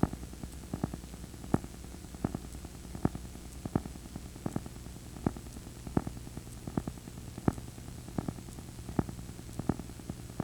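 A VHS player plays an unrecorded stretch of tape, giving steady static hiss over a low hum. A sharp click repeats at an even pace, about four clicks every three seconds.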